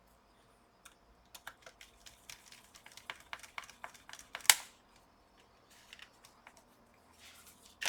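Irregular light clicks and taps of the laptop and small parts being handled, a run of them building to one sharp click about four and a half seconds in.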